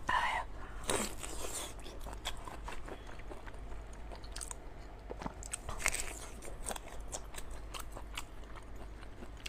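Close-up eating sounds: biting and chewing raw black tiger prawns, with many small wet clicks and a few longer crunching or sucking smears, about a second in and again near six seconds.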